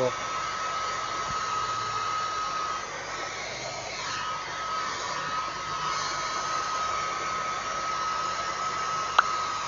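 Hair dryer running steadily, a rushing blow with a thin constant whine, drying a flood-soaked wallet and cards. A single sharp click near the end.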